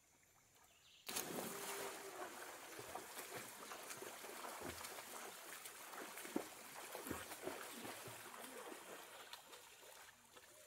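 Water splashing in a swimming pool: a sudden splash about a second in, then steady splashing and sloshing that slowly fades, with faint voices under it.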